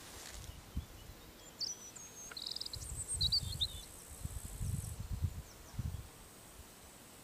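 Summer countryside ambience: a small bird chirps several short phrases over a steady high insect trill from crickets. Low rumbles come and go underneath.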